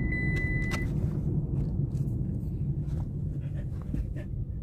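Car cabin noise while driving: a steady low road-and-engine rumble. A steady high warning tone, the seatbelt alarm set off by the dog sitting on the seatbelt sensor, stops about a second in, with a couple of light clicks around it.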